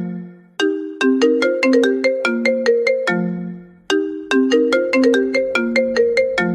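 A ringtone-style melody of quick, struck, bell-like notes, played as a phrase of about three seconds that repeats once, each time ending on a lower held note.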